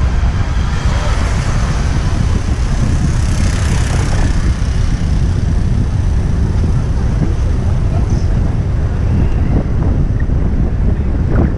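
Wind buffeting the microphone of a moving action camera: a loud, steady low rumble, with a hiss that swells and fades over the first few seconds.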